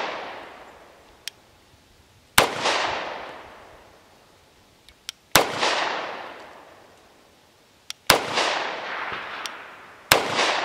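Four shots from a Kimber Ultra TLE II, a compact 1911 pistol with a 3-inch barrel firing .45 ACP, in slow fire about every two to three seconds. Each shot is followed by a long echo that fades over a couple of seconds.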